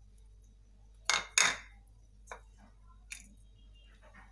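A spoon knocking against a plate and a glass bowl while chopped onion is scraped off into the bowl: two sharp knocks close together about a second in, then a few lighter clicks.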